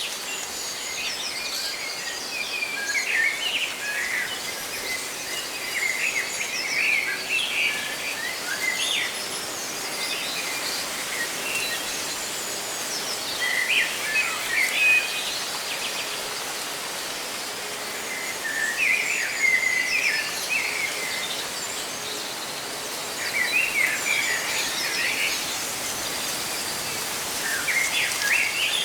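Leaves rustling in a steady hiss, with small birds chirping in short clusters of quick notes every few seconds.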